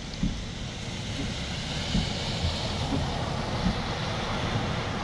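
A car driving through deep floodwater, its tyres throwing up spray: a rushing hiss of water that swells and peaks about halfway through. A few low thumps sound on the microphone.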